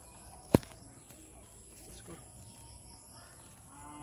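Faint outdoor background with one sharp click about half a second in. A faint drawn-out call with several pitches comes near the end.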